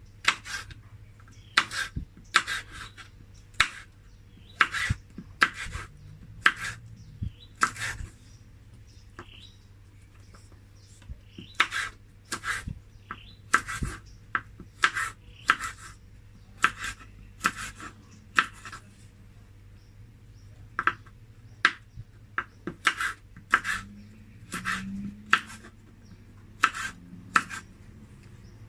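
Knife chopping on a cutting board: sharp, irregular knocks, about one or two a second, with a few short pauses.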